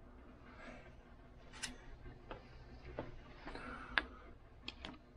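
Scattered light clicks and taps of metal press parts and tools being handled while the primer punch height is set, with a sharper click about four seconds in and two quick ticks near the end.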